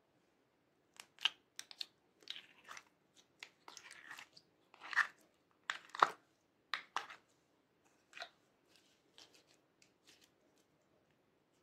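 Thick orange slime being squeezed and folded by hand, giving a run of irregular sticky crackles, pops and squelches. The loudest two come about five and six seconds in, and the sounds thin out toward the end.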